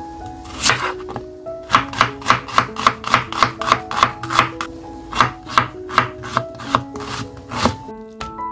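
Chef's knife chopping an onion on a wooden cutting board: one cut, then a steady run of about three cuts a second that stops shortly before the end.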